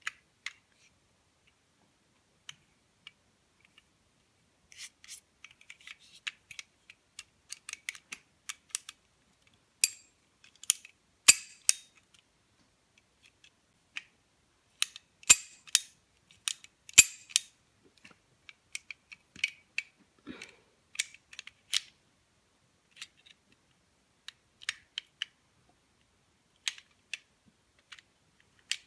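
Metal toy model of a Colt M1911A1 pistol being handled and worked: irregular sharp metallic clicks and clacks, some in quick clusters, with quiet gaps between.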